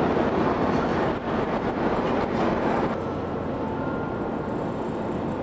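Vehicle running, heard from on board as a steady noise. It eases slightly about three seconds in, leaving a faint steady whine.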